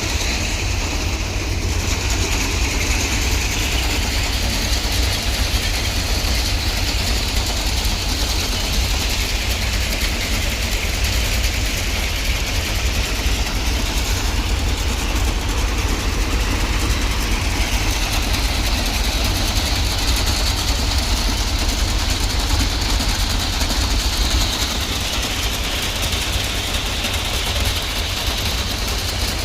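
Heavy diesel engine of a railway track machine running steadily, a deep constant rumble with an even hiss over it.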